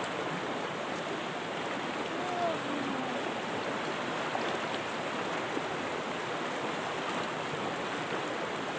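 River water rushing over rocks: a steady, unbroken rush of flowing water.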